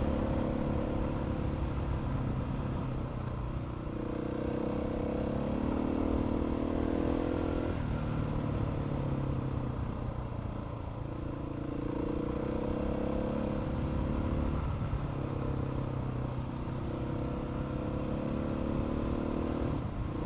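Motorcycle engine running under way, its pitch slowly climbing and then dropping back about five times as the throttle is rolled on and off or gears change.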